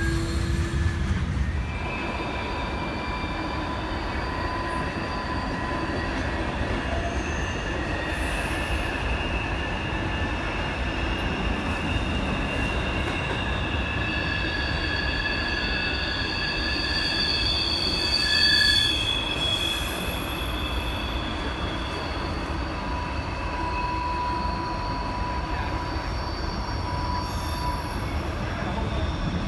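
MARC passenger test train hauled by a Siemens SC-44 Charger locomotive, moving slowly through a station. Its steel wheels squeal steadily in several high pitches over a low rumble, with a brief louder squeal about two-thirds of the way through.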